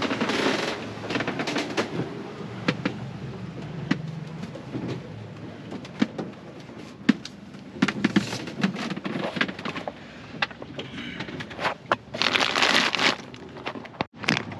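Irregular clicks, knocks and rattles inside a sailboat's cabin under sail, over a low steady rumble, with two bursts of rushing noise, one at the very start and one about twelve seconds in.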